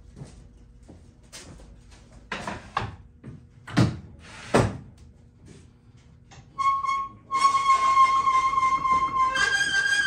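Wooden boards knocked and set down on a shop bench, four knocks in the first half. Then a loud, steady, whistle-like high tone with a hiss under it sets in, steps up in pitch near the end and cuts off abruptly.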